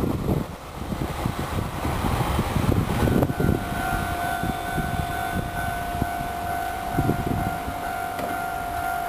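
Japanese railway level-crossing alarm starts ringing about three seconds in, a steady electronic tone that pulses rapidly, over the low rumble of a receding 485-series electric train.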